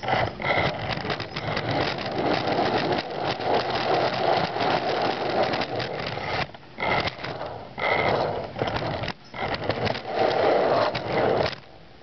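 Small electric drive motors of a homemade RC vehicle whining as it drives, its hard-drive-platter wheels rolling and scraping on a wooden floor. The noise breaks off briefly about six and a half seconds in and again near nine seconds, then cuts off just before the end.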